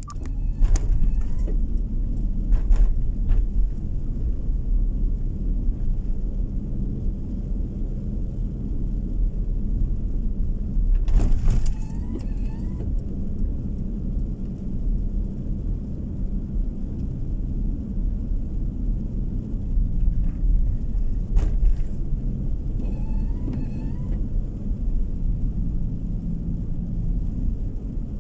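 Car driving along a road, heard from inside the cabin: a steady low rumble of tyres and engine, with a few brief knocks.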